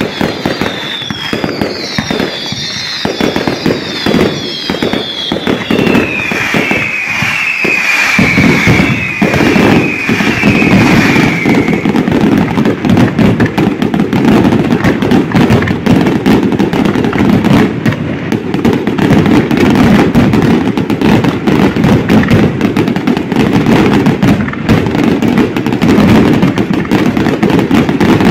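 Aerial fireworks display: rapid, overlapping bangs and crackle of bursting shells, with a run of whistles falling in pitch during the first dozen seconds. About eight seconds in the firing thickens into a louder, near-continuous barrage of explosions.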